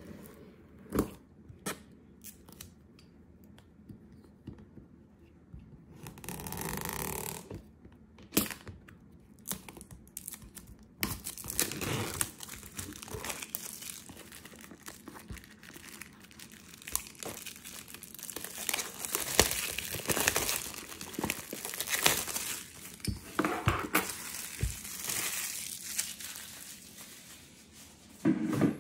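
Clear plastic shrink-wrap being torn and peeled off a cardboard box, crinkling in bursts, with a few scattered taps early on. A short knock comes near the end.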